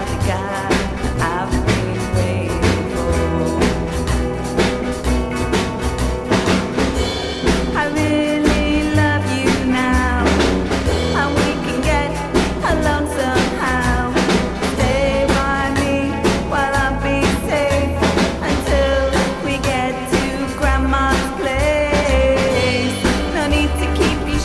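A recorded song plays: a steady drum beat and a pulsing bass under a wavering lead melody.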